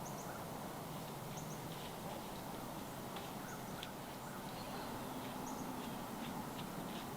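Short, high bird chirps and calls scattered over a steady outdoor hiss of woodland ambience.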